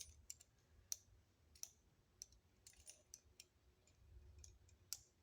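Faint, sharp metal clicks from handcuffs being handled, about a dozen at irregular intervals.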